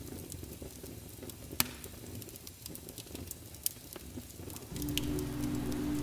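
Wood fire crackling with scattered sharp pops, two louder ones about a second and a half and three and a half seconds in. Near the end, soft low sustained music tones come in over the crackle.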